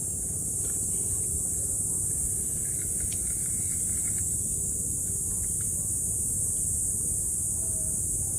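Steady outdoor ambience: a constant high insect drone over a low, even rumble, with a few faint ticks.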